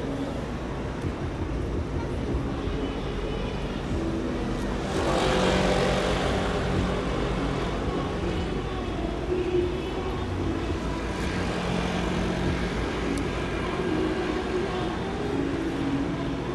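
A vehicle passing over a steady outdoor hum of traffic, swelling to its loudest about five seconds in and then fading.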